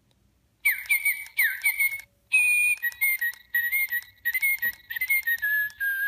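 Little Live Pets Snowflake toy bird singing its electronic song through its small speaker: a run of high chirps and whistled notes, broken by quick clicks. The song starts about half a second in, pauses briefly about two seconds in, then goes on.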